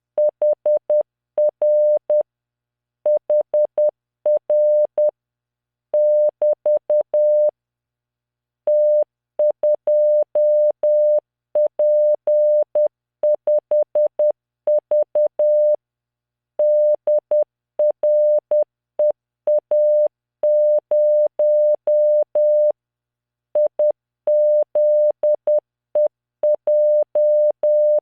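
Computer-generated Morse code: a 600 Hz tone keyed on and off in short dots and longer dashes at 10 words per minute, sending random five-character groups with short silences between them.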